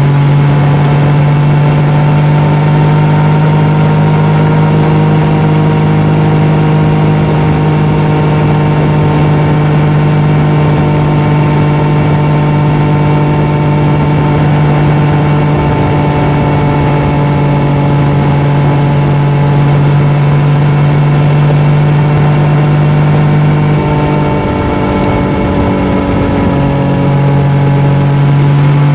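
Yamaha MT-09's inline three-cylinder engine running through an Akrapovic exhaust, holding a steady note at cruising speed. About 24 seconds in the steady note drops out for about two seconds, then comes back.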